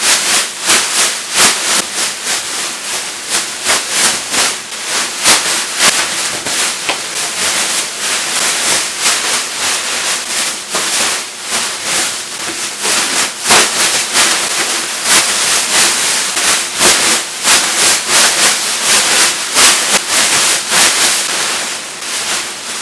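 Mylar foil emergency blanket being handled and unwrapped, a loud continuous crinkling and crackling with many sharp crackles.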